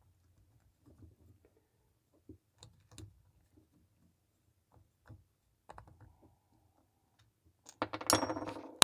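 Small scattered clicks and taps of a screw and the shut-off valve handle being fumbled together by hand, then a louder scraping clatter near the end. The original screw is not catching in the replacement valve stem.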